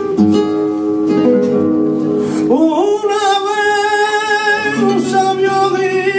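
Flamenco guitar playing, then about two and a half seconds in a male flamenco singer enters over it with a long held, wavering sung note, followed by a second phrase.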